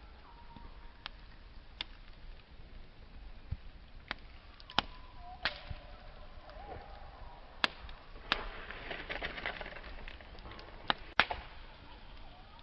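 Wood campfire crackling, with sharp, irregular pops and snaps every second or two, and a denser run of crackling about two-thirds of the way through.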